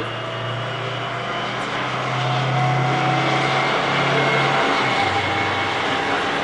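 Six-wheeled airport fire truck driving past at speed, its diesel engine running with a steady low note that grows louder about two seconds in as it draws close and drops in pitch about five seconds in.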